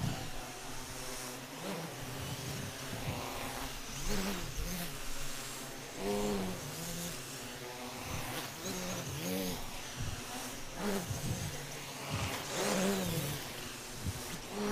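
Quadcopter propellers whirring, their pitch swooping up and down again and again as the motors speed up and slow down to hold and catch the quads in the air.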